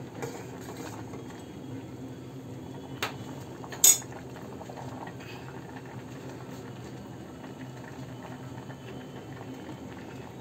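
Rice kheer (milk and rice) bubbling steadily as it simmers in a stainless steel pot. Two sharp metal clinks about three and four seconds in, the second louder: the steel ladle knocking against the pot.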